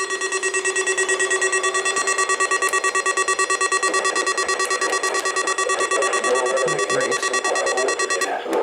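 Weather radio receiver's electronic alert alarm: a harsh, steady-pitched tone pulsing rapidly. It cuts off shortly before the end.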